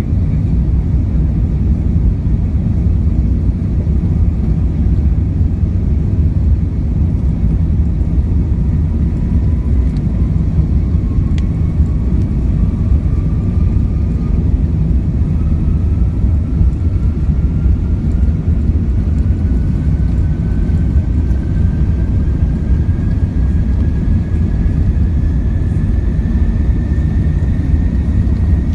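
Airbus A380 jet airliner on its takeoff run: a loud, steady, heavy rumble, with a faint whine that rises slowly in pitch from about a third of the way in as the aircraft gathers speed.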